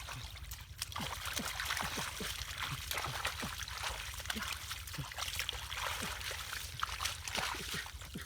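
Shallow floodwater splashing and sloshing, with many small drips and plops.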